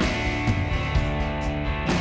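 Background rock music with strummed electric guitar over a steady drum beat.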